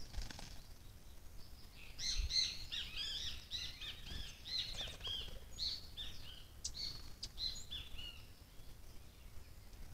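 Small songbirds calling: a rapid run of short, high, arched chirps that starts about two seconds in and thins out near the end, over a low rumble.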